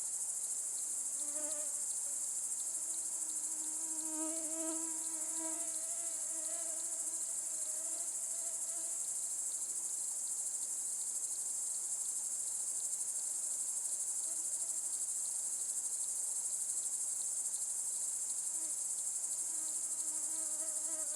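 A steady, high-pitched chorus of chirping insects such as grasshoppers and crickets. A flying insect buzzes close by with a wavering hum for the first several seconds and again near the end.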